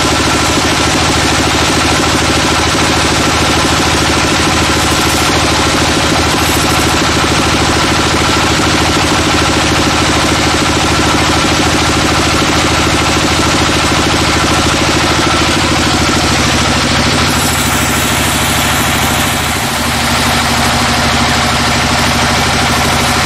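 Log band saw running steadily, with a continuous machine drone and a hiss from the blade as it saws a teak log into slabs. The level dips briefly near the end.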